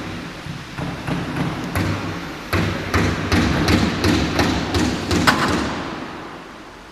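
CNC router cutting a workpiece turning on its rotary attachment: irregular knocks and thuds, several a second, over a low steady hum. It fades down near the end.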